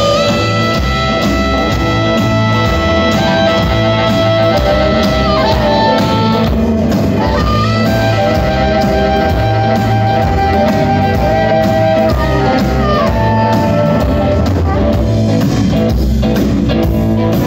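Live blues band playing an instrumental passage: hollow-body electric guitar and drum kit keeping a steady beat, under a held lead line that bends up and down in pitch.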